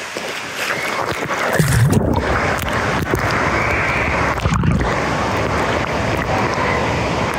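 Water sloshing and splashing right at the microphone, held at the surface of a lazy river, with two heavier splashing thuds about two seconds in and again around four and a half seconds.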